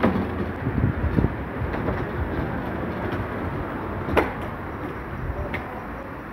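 Steady low rumble of wind and handling noise on a phone microphone carried on foot, with a few sharp knocks, the loudest about four seconds in.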